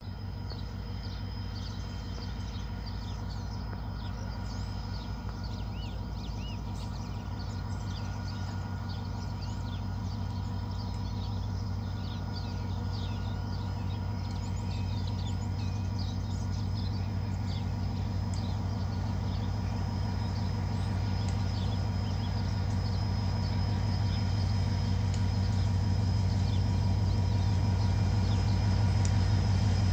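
Diesel locomotives hauling a coal train as they approach: a steady low engine drone that grows steadily louder. Birds chirp over it, mostly in the first half.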